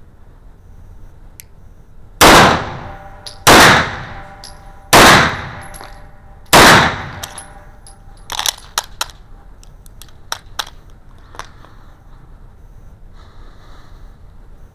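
Four pistol shots about 1.2 to 1.6 seconds apart, each ringing on in the echo of an indoor range. A couple of seconds after the last shot come several light, sharp metallic clicks as the pistol is handled.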